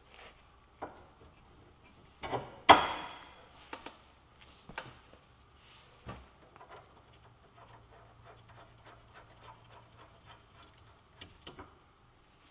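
Scattered knocks and clicks of metal tools and parts being handled at a car's front steering knuckle. One sharp metallic clank with a short ring comes a little under 3 seconds in, and lighter taps and clicks follow.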